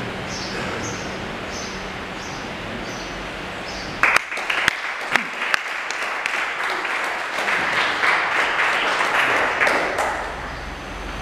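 Small audience applauding. A few scattered claps about four seconds in build into steady clapping, which dies away near the end.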